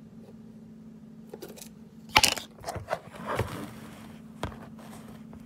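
Handling noise from the phone camera being picked up and repositioned on a kitchen counter: a sharp knock about two seconds in, a short run of clattering and scraping, then another knock, over a steady low hum.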